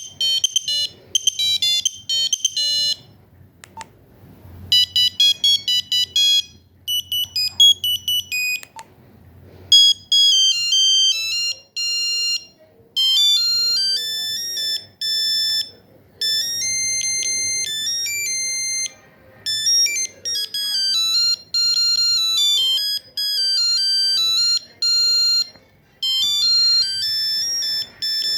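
Nokia 2100 mobile phone playing its monophonic ringtones and SMS tones through its small speaker: a string of short, single-line beeping melodies, one after another with brief pauses between them.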